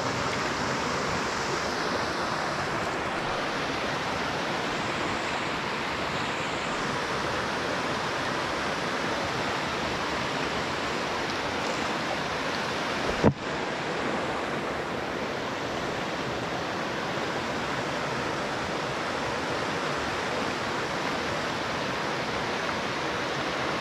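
Shallow, rocky mountain river rushing over stones in a steady hiss. A single sharp knock cuts through once, about thirteen seconds in.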